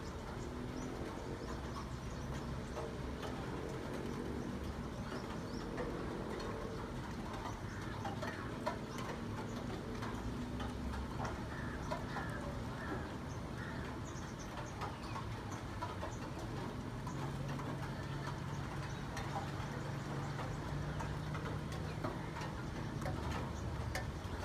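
Steady rain falling, with scattered drip-like ticks; a low steady hum comes in during the second half.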